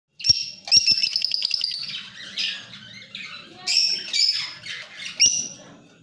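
Lovebirds calling: a rapid run of short, high-pitched chirps in the first two seconds, then several separate squawks. A few sharp knocks come in among them.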